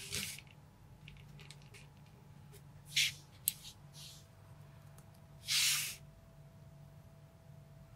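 Small plastic toy parts being handled: a minifigure's weapon is pulled out of its hand and another pushed in, giving a few short scraping rustles (near the start, about three seconds in and about five and a half seconds in) and a sharp light click between them.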